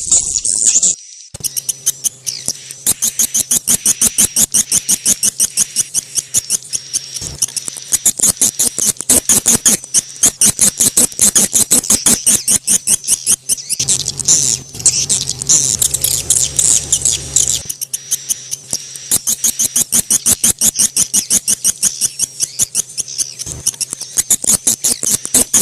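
Swiftlets giving their courtship call: a fast, even run of high-pitched chirps, about four or five a second, over a faint steady high tone.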